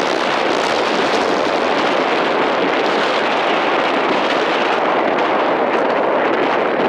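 Wind buffeting the camera microphone: a loud, steady rushing noise.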